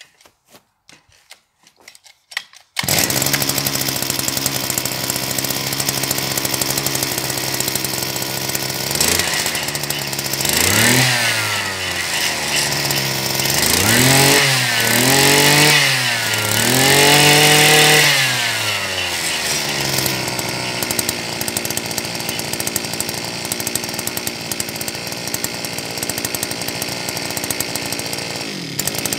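Mitsubishi TL52 two-stroke engine on a garden tiller being pull-started, catching about three seconds in after a few faint cord pulls. It settles into a steady idle, is revved up and down several times in the middle, then drops back to idle.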